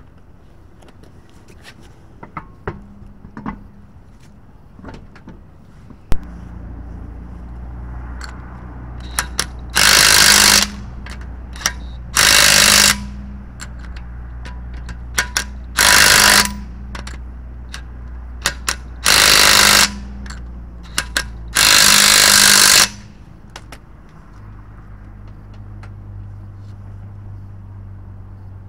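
Cordless impact wrench hammering the wheel's lug nuts tight: five bursts of about a second each, a few seconds apart, one per nut. Before them, light clicks and knocks of the wheel and nuts being fitted by hand.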